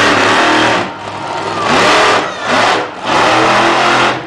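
Monster truck engine revving hard in four surges, the throttle opened and backed off between them, with the engine note climbing during each surge.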